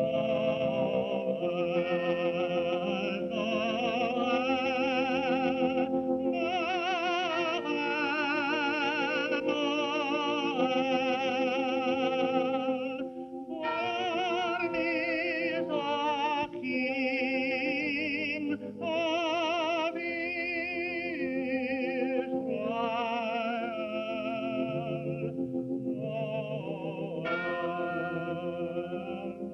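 Operatic-style singing with heavy vibrato, phrased a few seconds at a time over a held accompaniment tone, from an old cartoon soundtrack.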